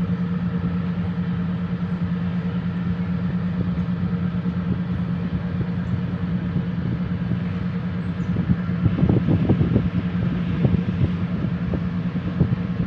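Boat engine running with a steady low drone. About nine seconds in the sound turns louder and rougher for a second or so.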